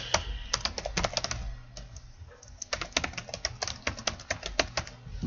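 Typing on a computer keyboard: two runs of quick keystrokes with a short pause about two seconds in.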